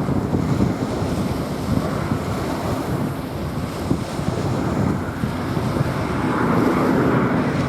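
Small waves washing on a sandy beach, with wind buffeting the microphone. Near the end a broader roar swells up over the surf, a jet airliner approaching.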